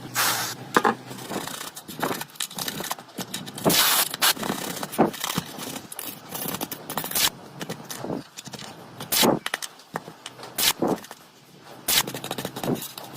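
Irregular clicks, taps and short scrapes of small hand tools and parts being handled on a smartphone during repair work, several sharp knocks a second at times, with short pauses between.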